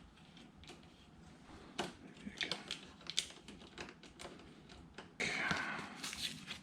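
Light, irregular clicks and taps of hands handling small parts and cable, then a louder rustling starting about five seconds in.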